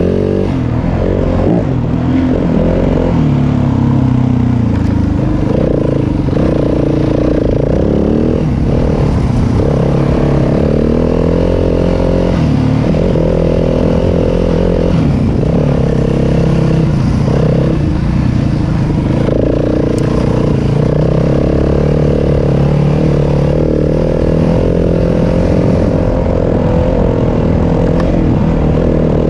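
Yamaha WR250F dirt bike's single-cylinder four-stroke engine running under load on a trail ride, its pitch rising and falling again and again as the throttle is opened and rolled off.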